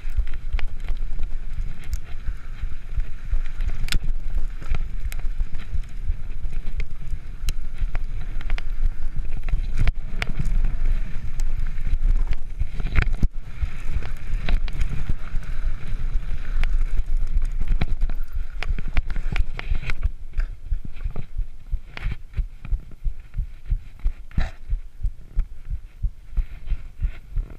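Wind buffeting the action camera's microphone over the rumble and rattle of a Cannondale Claymore mountain bike riding fast down a dirt trail, with sharp knocks as it hits bumps. About two-thirds of the way through the noise eases into a regular low pulsing.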